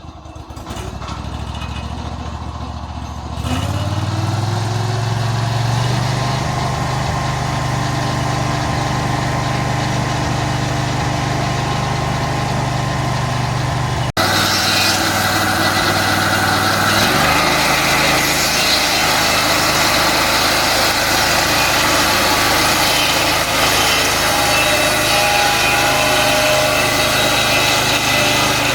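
Band sawmill's small engine running, picking up speed about three seconds in. After an abrupt break about halfway, it runs on louder with a hissing noise over it.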